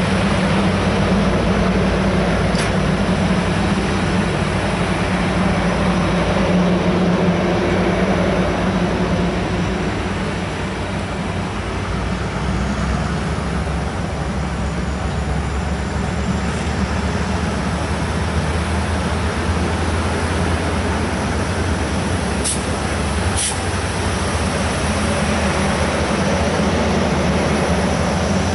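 The passenger cars of Norfolk Southern's Office Car Special train rolling past, a steady rumble of steel wheels on the rails. Two sharp clicks come about a second apart near the end.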